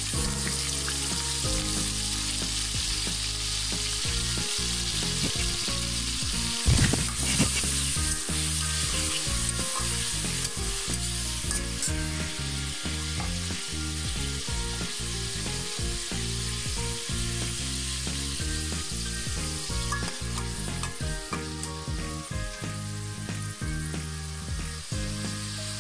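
Chopped onions sizzling as they fry in hot oil in a stainless steel pan, with a spatula stirring and scraping through them. A louder knock comes about seven seconds in.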